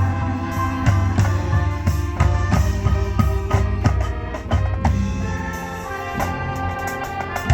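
High school marching band playing: brass and woodwinds holding chords over drum-line and bass drum hits, the drumming busier in the first half before longer sustained chords.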